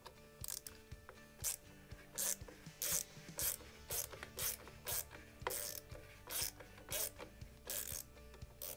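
Fix-It Sticks slotted screwdriver backing out the top tang screw that holds a Henry lever-action rifle's stock, with short rasping clicks about twice a second as the driver is turned.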